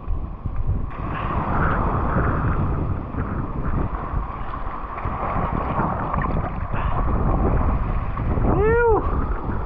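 Wind buffeting the microphone over sea washing and surging against shoreline rocks. A short rising-and-falling cry comes near the end.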